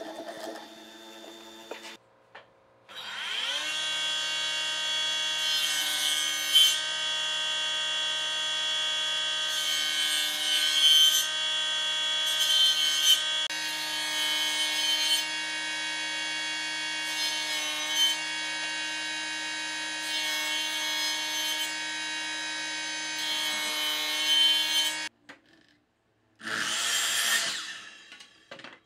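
Table saw motor spinning up and running with a steady whine, swelling louder several times as narrow pine stock is fed through the blade; it cuts off abruptly near the end, followed by a short harsh burst from another saw cut.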